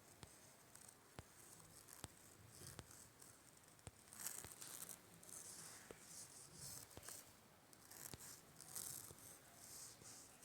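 Near silence: faint room tone with scattered soft clicks about once a second and brief hissy rustles from about four seconds in.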